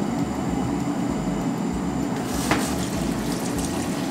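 A steady low hum from a running kitchen appliance fan. A single knock comes about two and a half seconds in, and from about two seconds in a kitchen tap runs water over sliced leeks in a metal colander.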